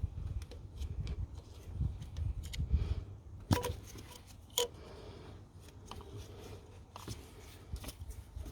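Hands working on the engine's plastic parts: rumbly handling noise, then sharp clicks and clunks, two of them loud and a little over a second apart around the middle, as wiring connectors and breather hoses are unclipped.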